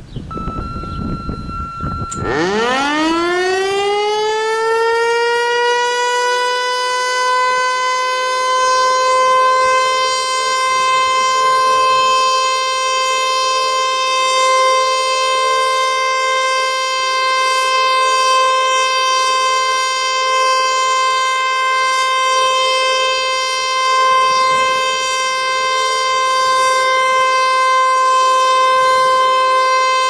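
Federal Signal Eclipse 8 rotating mechanical fire siren winding up about two seconds in, its pitch rising fast, then holding a steady wail for its weekly test. The loudness swells and eases slightly as the head turns. A faint steady tone sounds just before the start.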